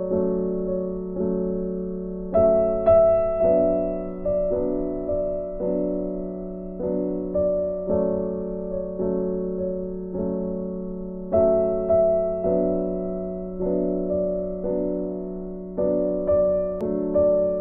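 Background music: gentle piano or electric-piano chords played at an even, slow pace, each chord fading before the next, over a sustained low note.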